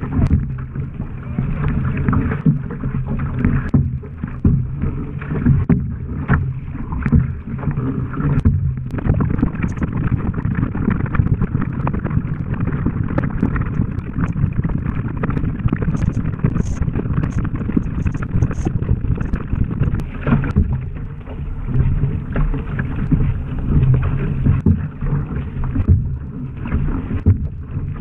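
Water rushing and slapping against a surfski's hull as it is paddled at race pace through light chop, with the splash of the paddle blades going in at each stroke.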